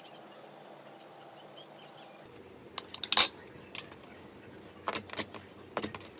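Slime being pressed and poked close to the microphone, giving sharp, separate clicks and pops of trapped air. The first two seconds are only a faint steady background; the clicks start after that, the loudest about three seconds in and a quick cluster near the end.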